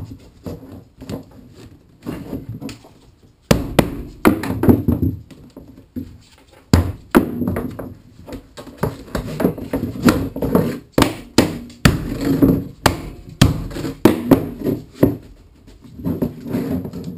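PVC tubes and plastic end fittings knocking and tapping on a wooden workbench, with fabric rubbing and handling, as a cat window perch is assembled by hand. The knocks come irregularly, sparse at first and then many in a row from a few seconds in.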